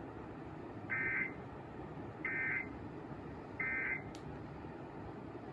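Emergency Alert System end-of-message tones: three short bursts of warbling digital data, each about a third of a second long and about 1.3 seconds apart. They mark the end of the tornado warning message.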